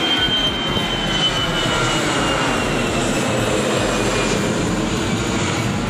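Twin-engine jet airliner climbing out after takeoff: loud, steady jet engine noise with a high whine that slowly falls in pitch as the plane moves away.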